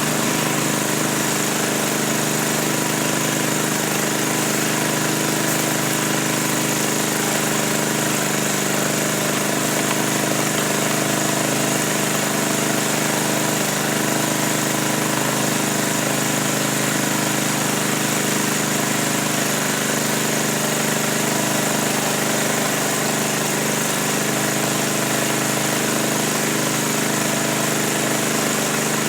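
A motor running steadily, a constant hum with no change in speed.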